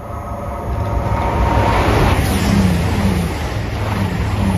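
East Midlands Railway Class 222 Meridian diesel multiple unit running through the station: a rush of engine and wheel-on-rail noise that swells as it approaches and is loudest from about two seconds in as the carriages pass.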